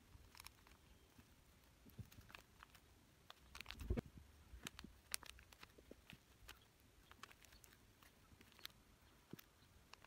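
Near silence: faint room tone with scattered small clicks and one soft thump about four seconds in.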